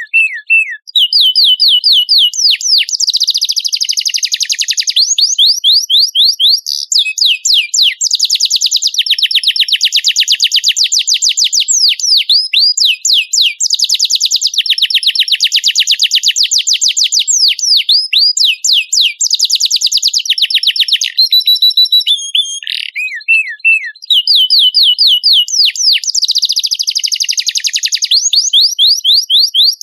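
Domestic canary singing without pause: long, high rolls of rapid repeated notes and fast trills, with brief changes of phrase about seven seconds in and again a little past twenty seconds.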